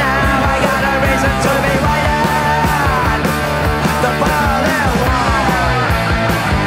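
Rock music with a steady drum beat, loud and unbroken.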